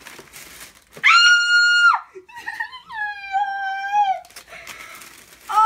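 A teenage girl squealing with excitement: a long, high-pitched squeal about a second in, then a second, lower and wavering squeal about three seconds in.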